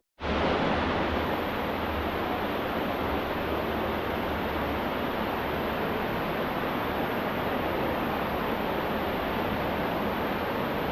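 Waterfall water rushing steadily, a continuous dense noise of falling water, after a split-second dropout at the very start.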